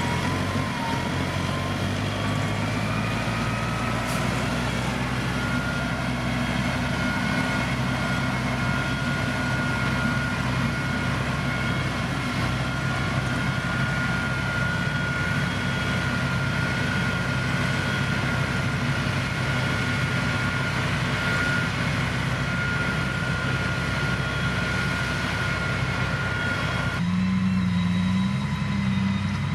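Heavy diesel engine of road-building machinery running steadily, with a whine that rises in pitch over the first few seconds and then holds. Near the end the sound changes abruptly: the higher sounds drop away and a lower engine note takes over.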